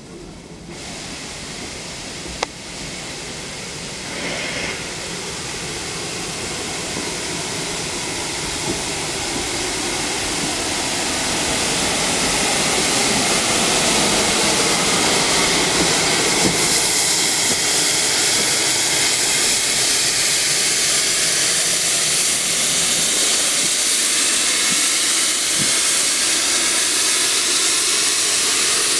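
Caledonian Railway 0-4-4 tank locomotive No. 419 running slowly past with steam hissing from its open cylinder drain cocks. The hiss grows steadily louder as the engine approaches, then holds steady. There is a single sharp click about two and a half seconds in.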